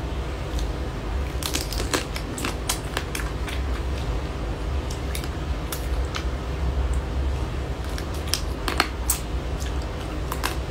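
Close-miked mukbang eating sounds: wet sucking, chewing and crunching on spicy-sauced seafood, with many sharp irregular clicks and crackles over a steady low hum.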